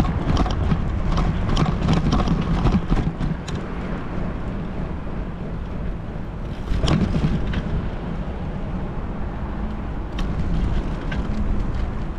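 Wind buffeting the microphone of a bike-mounted action camera while riding. Scattered clicks and knocks come in a cluster over the first few seconds and again about seven seconds in.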